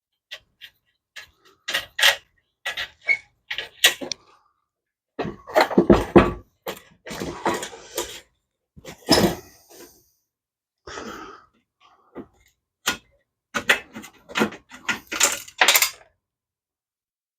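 Metal clinking, knocking and scraping from hand tools and small metal dash parts being worked loose. The clicks are irregular, with a busier stretch of rattling and scraping in the middle and a quick run of clinks near the end.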